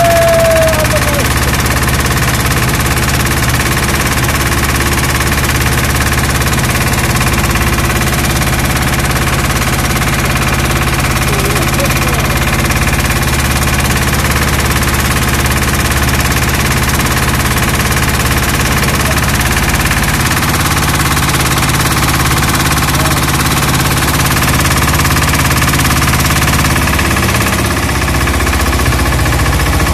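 Small air-cooled single-cylinder inboard boat engine running steadily under load, pushing the boat at speed, with the wash of water along the hull.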